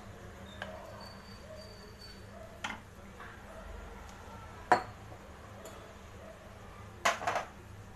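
Kitchenware knocking and clinking against a cooking pan: a faint knock a third of the way in, a louder sharp clink around the middle, and a short clatter of two or three hits near the end, over a low steady hum.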